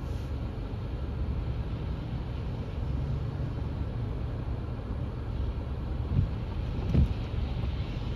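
Low, steady rumble of a car idling at a standstill, heard from inside the cabin, with other cars going by on wet road. Two short thumps come about six and seven seconds in, the second louder.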